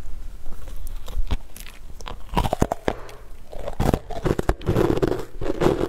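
Close-miked eating of a soft zucchini cookie coated in green powder: biting and chewing, with many sharp clicks and crackling mouth sounds.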